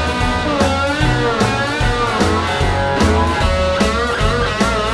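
Blues-rock background music: electric guitar playing lead lines with bending notes over bass and drums.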